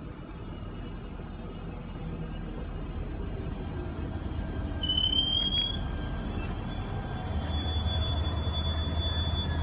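Arriva Stadler GTW train running into the station past the platform, its rumble growing louder. A short, slightly rising high squeal comes about five seconds in, and a steady high squeal over a low rumble follows near the end as the train slows.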